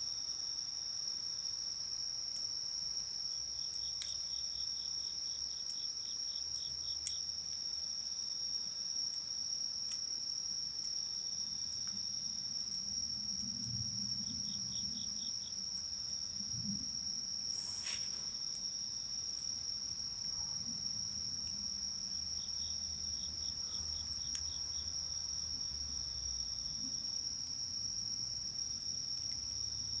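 Night insects chirring, one steady high continuous trill with short runs of rapid pulsed chirps from another insect joining three times. A few sharp pops from the crackling wood fire, the loudest near the middle.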